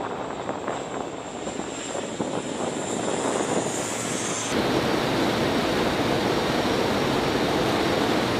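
Lockheed C-130J Super Hercules passing low overhead, its four turboprops and six-blade propellers droning under a high whine that grows louder and rises slightly. About halfway through this cuts abruptly to a louder, steady rush of engine and airflow noise inside the aircraft's cargo hold, with the rear ramp open in flight.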